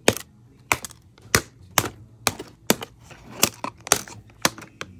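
Plastic packaging ties being cut one after another with a hobby knife, each cut a sharp click, about a dozen in all.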